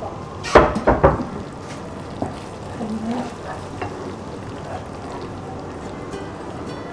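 Thick tauco sauce sizzling in a pan while a wooden spatula stirs it, with a few knocks and scrapes of the spatula against the pan about half a second to a second in.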